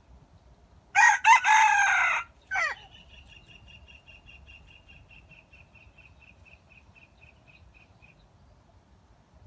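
A red junglefowl rooster crows once about a second in, a short crow of just over a second ending in a brief final note. Afterwards a faint thin high note repeats evenly about four times a second for some five seconds.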